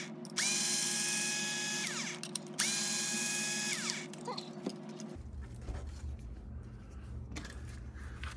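Cordless power driver backing out screws: two runs of motor whine, each about a second and a half, spinning up and winding down. A low steady hum follows from about five seconds in.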